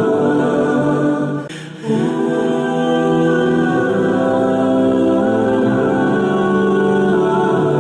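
Background music: held vocal chords sung by several voices, choir-like, with a brief dip about one and a half seconds in.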